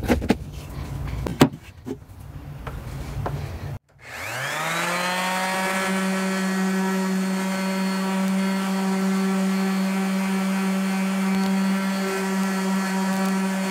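A few handling knocks and clicks, then a DeWalt DWE6423 random orbital sander is switched on about four seconds in: its motor winds up with a quick rising whine and settles into a steady hum as it sands a board. The freshly replaced hook-and-loop pad runs smoothly and the sander works as new.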